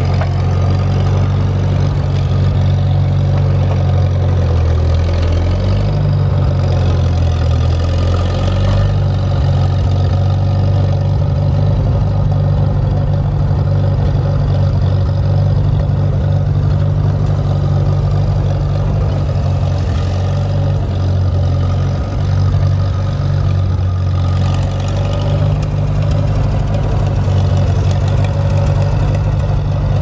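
Farmall 450 tractor engine running steadily as the tractor drives along, its note shifting a little twice.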